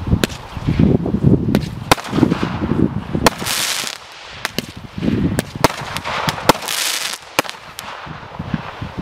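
Zeus Fireworks 'Mini Gods – Athena' barrage firing: a run of low thumps from the shots leaving the tubes, sharp cracks from the bursts, and two longer hissing bursts, about a third and three-quarters of the way through.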